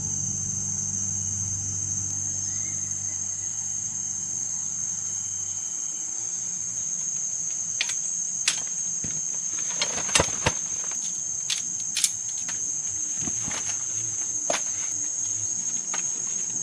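Steady, high-pitched drone of insects, crickets or the like, throughout. From about eight seconds in comes a string of sharp clicks and knocks of camp gear being handled, the loudest a cluster around the middle.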